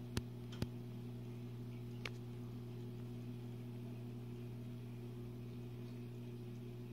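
Steady low electrical hum of running aquarium equipment, such as a pump or filter. Two sharp clicks come in the first second, and a fainter one about two seconds in.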